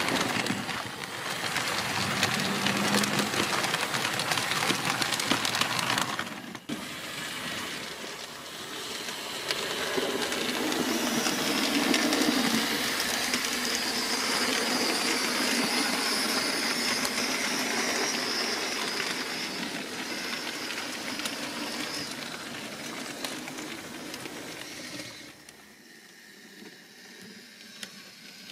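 HO-scale model freight train rolling past on the track, a steady rushing rattle of wheels on rail. About 25 seconds in it falls away to a much quieter background.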